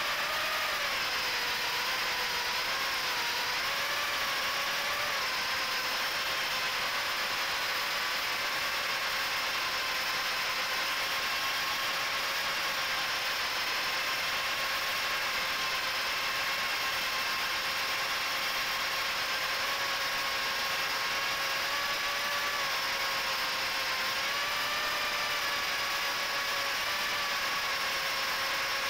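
Brushless motors and 3-inch props of a micro FPV quadcopter (HGLRC 1104 7500kv motors, Gemfan 3018 props) whining steadily in flight over a steady hiss. The pitch settles lower in the first second and rises briefly once near the end.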